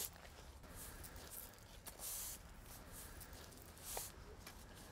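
Push broom sweeping stone dust across brick pavers to fill the joints: a few faint, scratchy brushing strokes, the clearest about two and four seconds in.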